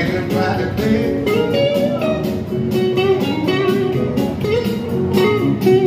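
Electric guitar playing rhythm-and-blues lead lines through a small portable speaker, over a steady backing beat.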